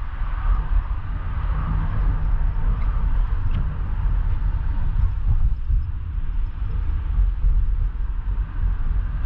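Inside a moving car: a steady low rumble of engine and tyres on the road while driving through city traffic.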